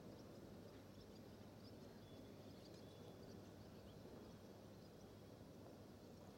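Near silence: faint steady background hum with scattered faint, short high chirps.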